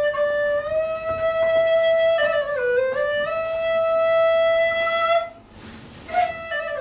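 Wooden vertical flute playing a slow melody of long held notes, with a brief dip in pitch about two and a half seconds in. Near the end comes a short breath, then a new note that falls in pitch.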